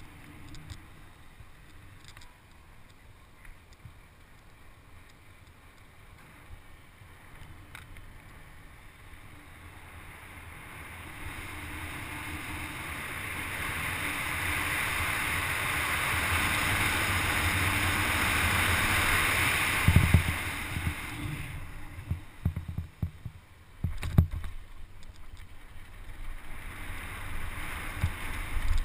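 Rushing wind and tyre noise from a mountain bike rolling downhill on a wet road, building to a loud rush as speed picks up and then dropping away. A couple of sharp knocks follow near the end, with rougher rattling noise as the bike runs onto a dirt trail.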